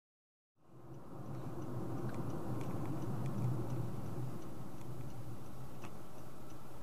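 Steady in-cabin noise of a moving car, engine and road hum, fading in about half a second in, with scattered light ticks.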